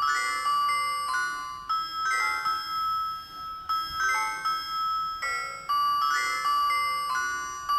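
Nokia 5310 mobile phone ringtone: a melody of bell-like chimes, each note struck and fading, with the phrase starting over near the end.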